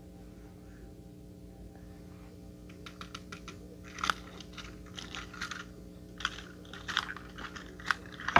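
Plastic toy train engine and tender being handled and pushed about on carpet: irregular clicks and clatters of hard plastic, starting about three seconds in, over a faint steady hum.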